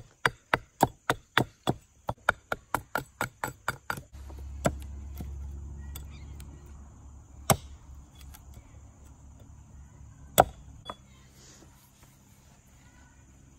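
Steel axe head chopping at a broken wooden axe handle on a stump: quick, even strokes, about four a second, for the first four seconds, then a few single knocks, the loudest about ten seconds in. A low steady hum runs under the later part.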